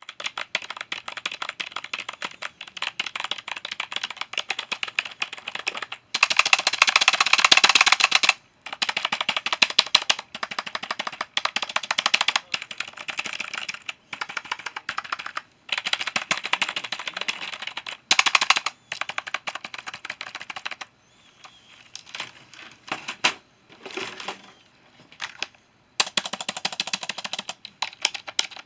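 Fast typing on a computer keyboard, the keys clicking in rapid runs of a few seconds with short pauses between; the loudest run is about six seconds in, and about three quarters of the way through the keystrokes go quieter and sparser before the fast typing resumes.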